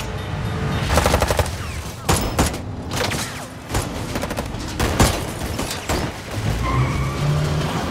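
Automatic gunfire: rapid bursts of shots, densest about a second in, with single loud shots scattered through.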